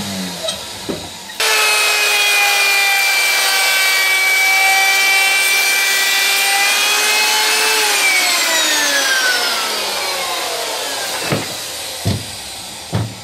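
Hand-held electric plunge router starting abruptly about a second and a half in and running at steady speed, rounding over the top edges of a mahogany seat slat. It is then switched off and winds down with falling pitch over about three seconds, followed by a few knocks near the end.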